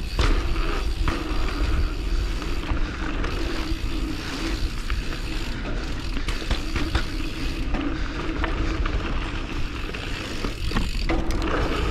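Mountain bike ridden down a dirt singletrack: knobby tyres rolling over dirt, with the bike's chain and frame rattling in many small clicks, over a steady low rumble of wind on the microphone.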